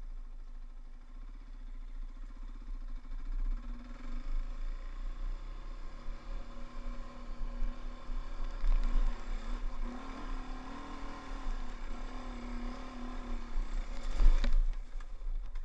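Dirt bike engine revving up and down under riding load over a rough trail, with a heavy low rumble of wind buffeting the camera microphone. Near the end there is one sharp knock, the loudest moment.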